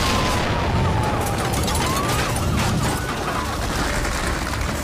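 Explosion in a building: a heavy rumble with dense crackling of fire and debris. A single thin tone slides down for about a second and a half, then rises again.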